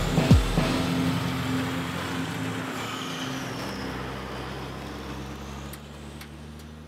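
Diesel engine of a loaded log truck running steadily as it drives by on a gravel road, slowly fading away. Just after the start, a last bass beat of electronic music.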